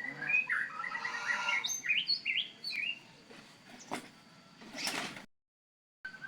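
Birds chirping busily in quick, short rising and falling notes, thickest over the first three seconds, with a sharp click about four seconds in and a brief rush of noise near five seconds. The sound then drops out completely for under a second before the chirping returns.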